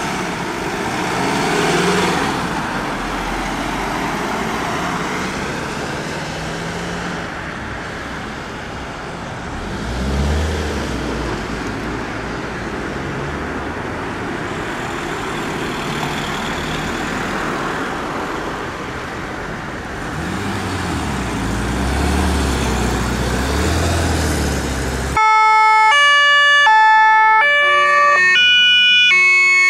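Emergency vehicles driving past one after another, their engines and tyres rising and falling as each goes by. About 25 seconds in, a loud German two-tone siren (Martinshorn) starts up close by, its pitch switching back and forth in steps every half second or so.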